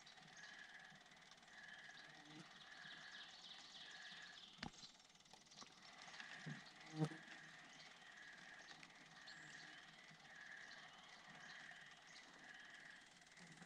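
Near silence outdoors: a faint short high chirp repeating at an even pace, a little faster than once a second, over a light hiss. A sharp click comes a little before five seconds in, and a louder knock at about seven seconds.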